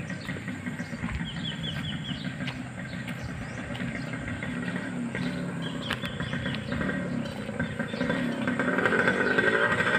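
A vehicle engine running steadily, growing louder near the end as it approaches.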